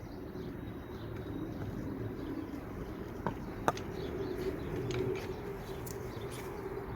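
A bird cooing steadily in the background, with two sharp clicks a little past the middle, like small metal parts being handled.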